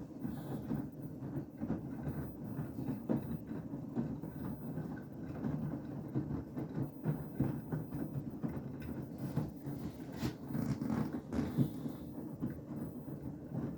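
Beko WTK104121W front-loading washing machine in its Cottons 60 main wash, the drum turning a sudsy load of towels: a steady churning slosh of water and laundry with many small irregular knocks.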